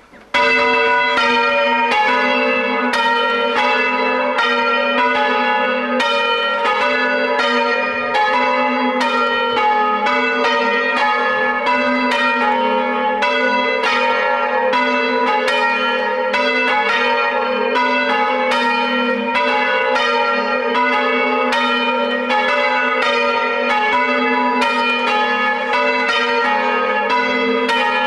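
Church bells being rung in changes in the tower, heard from outside: an even, unbroken succession of strokes on bells of different pitches, each ringing on into the next.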